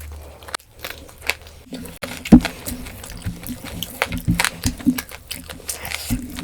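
Close-miked eating sounds: chewing with many small wet mouth clicks, and one louder knock a little over two seconds in, over a steady low hum.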